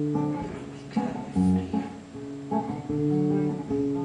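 Acoustic guitar played alone, plucked notes and chords in a slow, even pattern.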